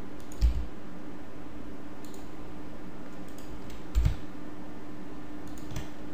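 Computer keyboard keys and mouse buttons clicking as Blender shortcuts are pressed: a click about half a second in, a double click at about four seconds and another near the end, each with a slight thud from the desk, over a steady faint hum.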